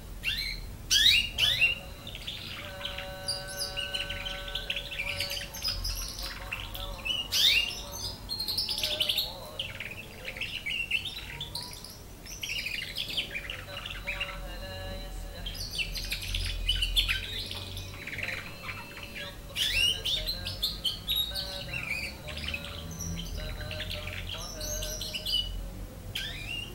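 A young domestic canary, nine months old and still learning its song, singing in quick chirps and rapid trills broken by short pauses. A steady held note sounds under the song for a couple of seconds early on.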